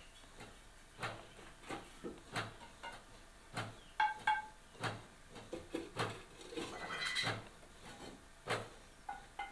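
Clay cooking pots knocking and clinking against each other and the floor as they are handled and stacked, about a dozen irregular knocks. The loudest come about four seconds in, a close pair with a short ringing tone.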